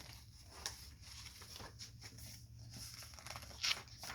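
Faint rustles and clicks of handling noise, with a louder rustle near the end, over a steady low hum.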